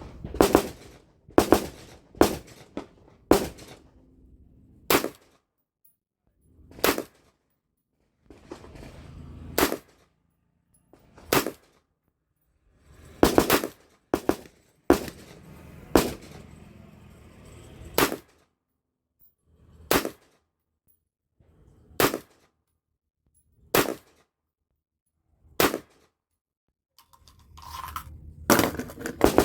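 AR-15 rifle fired in single shots, about eighteen in all: irregularly spaced at first, then a steady shot about every two seconds, and a quicker string near the end.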